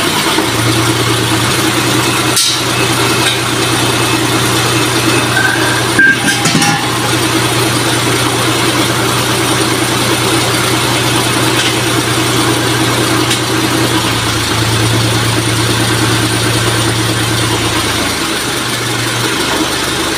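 Boom truck's engine running steadily at idle to power the crane, a little stronger for a few seconds past the middle, with a couple of sharp clicks in the first few seconds.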